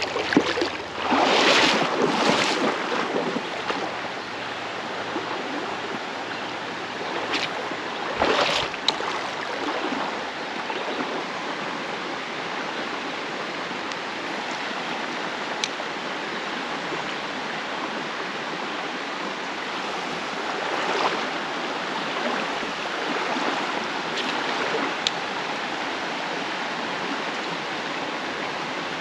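Creek water flowing steadily over a shallow, rocky riffle. Louder swishes of water near the start and again about eight seconds in come from wading through the water.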